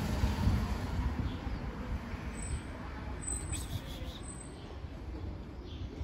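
Low rumble of street traffic, slightly louder in the first second and then steady.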